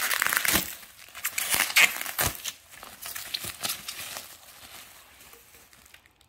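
Bubble-wrap packaging crinkling as it is unwrapped by hand: dense crackles, loudest in the first two and a half seconds, then thinning out and fading.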